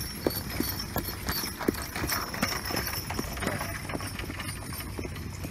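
Hoofbeats of a Percheron draft horse pulling a two-wheeled show cart across a dirt arena, a steady run of dull strikes at about two to three a second.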